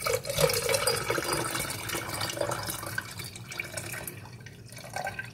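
Hot lavender tea poured from a pot through a plastic mesh strainer into a glass pitcher holding ice and lemon juice: a splashing stream of liquid that starts abruptly and thins out over the last couple of seconds.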